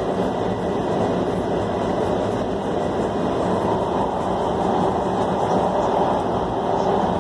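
Metro Red Line subway train running through a tunnel, heard from on board: a steady, unbroken rush of wheel-on-rail and tunnel noise.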